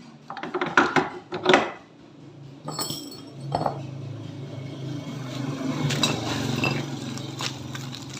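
Metal CVT pulley parts of a scooter being handled and fitted, clinking and knocking against each other and against tools. A few loud clanks come in the first two seconds and single clinks follow, then lighter handling noise continues over a low steady hum.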